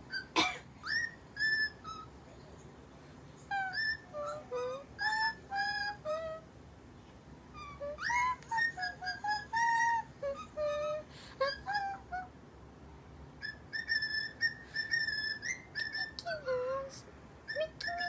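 Pet bird whistling a tune: phrases of short whistled notes, some held and some sliding up or down, broken by pauses of about a second.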